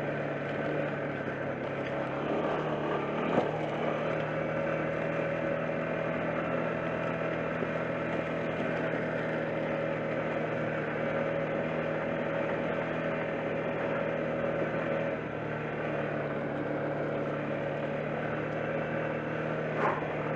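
ATV engine running at a steady low speed as the quad rolls along a rocky trail. There is a brief sharp knock about three seconds in and another near the end.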